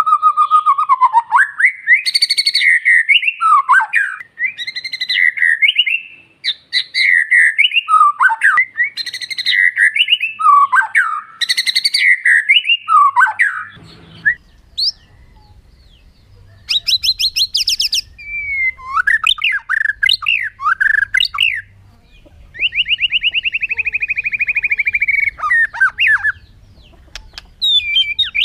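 White-rumped shama (murai batu) singing: a fast, varied run of loud whistled phrases that swoop up and down, then, about halfway through, more spaced phrases over a faint low hum, including a fast high trill and a long buzzy rattle lasting about three seconds.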